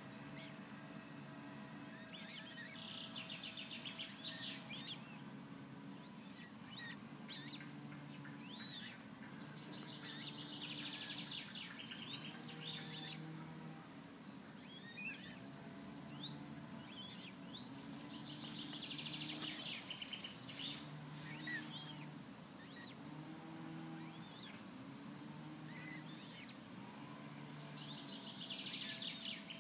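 Birds singing outdoors: one songbird repeats a short, dense song phrase about every eight seconds, with scattered chirps and peeps between the phrases. A faint low hum runs underneath.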